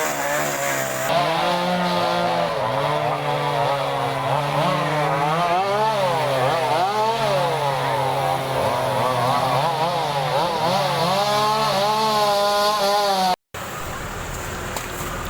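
Chainsaws running and cutting, their pitch rising and falling as they rev and bog down in the wood. The sound cuts off suddenly near the end and a lower, steady engine rumble takes over.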